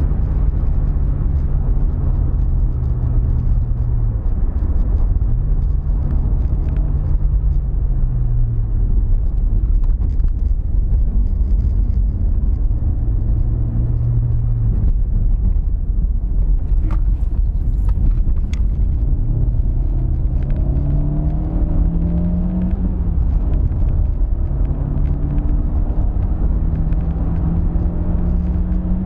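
Renault Megane II's 1.6 16v four-cylinder petrol engine and road rumble heard from inside the cabin while driving, running normally on a newly replaced fuel pump. The engine note holds, dips and rises again several times, climbing steadily as the car accelerates in the second half.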